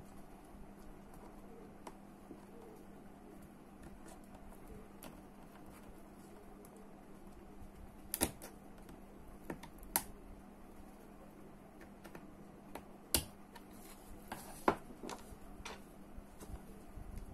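Small metal parts of a Daiwa Seiko Coronet 5 reel's side plate being handled with a thin screwdriver: faint fiddling, then about half a dozen sharp small clicks and taps in the second half, over a low steady hum.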